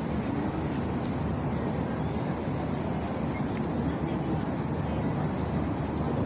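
Steady low rumble of city background noise.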